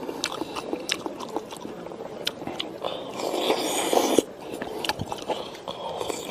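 People eating from porcelain bowls with chopsticks: chewing and mouth sounds, with scattered sharp clicks of chopsticks against the bowls.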